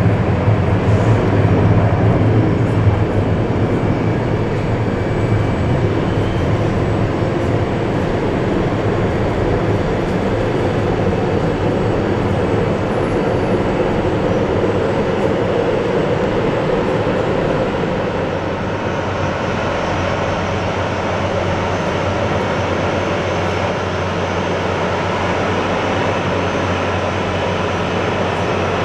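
CFM56-7B turbofan jet engines of a Boeing 737-800 running at taxi power: a steady jet rush and whine that eases slightly about two-thirds of the way through.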